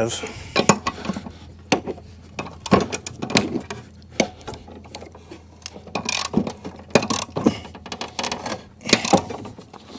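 Socket ratchet clicking in short, irregular runs as a mower-deck blade bolt is tightened on the spindle.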